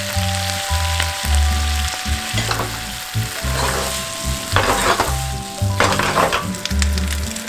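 Fettuccine and tomato sauce sizzling in a frying pan over a gas flame as the pasta is tossed and stirred, with about four louder surges of sizzling.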